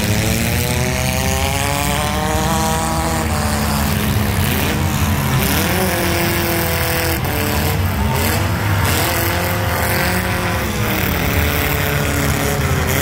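Several compact demolition-derby cars' engines running and revving hard, their pitch climbing and falling over one another, with a few sharp knocks around the middle.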